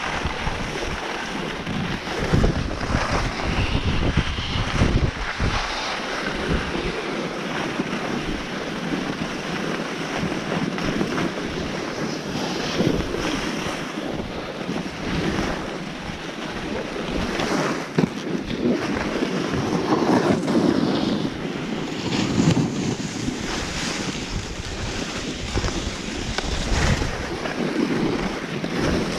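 Alpine skis hissing and scraping over packed snow on a steady descent, with wind buffeting the chest-mounted microphone and occasional knocks as the skis ride over bumps.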